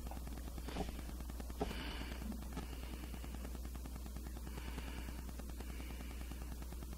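Quiet room tone with a steady low hum and a couple of faint ticks in the first two seconds.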